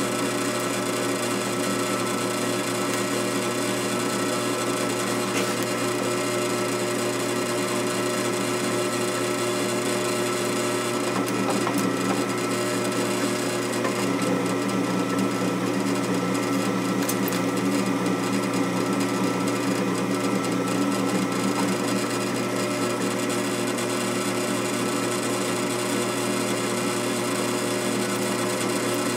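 Drill press running steadily as a new 3/16-inch bit cuts into the cast-iron cylinder of a 1930 Briggs & Stratton FH engine, drilling out a broken fastener. The hum drops slightly in pitch about halfway through.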